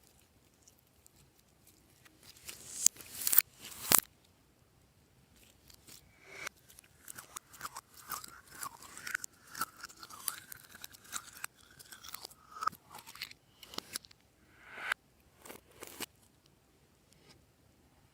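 Hands kneading glossy slime: irregular sticky clicks, crackles and pops, with a few sharp loud clicks about three to four seconds in and a squeaky squelching stretch in the middle.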